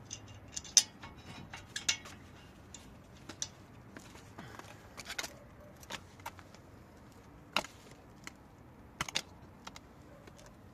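Irregular metallic clinks and clicks of hand tools and brake parts being handled and set down, the sharpest about a second in and a close pair near the end.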